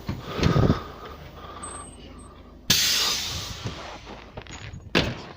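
Compressed air hissing out of the ruptured air hose at a KamAZ truck's spring brake chamber, a leak in the brake air system. The hiss starts suddenly about halfway through and fades over a second or so, with a second short puff near the end and a low knock about half a second in.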